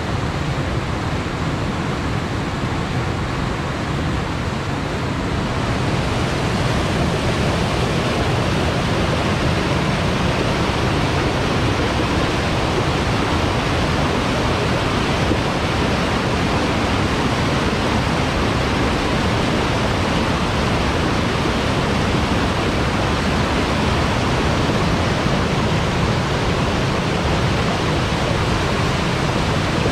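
River water pouring over a weir, a steady roaring rush that grows a little fuller and brighter about six seconds in.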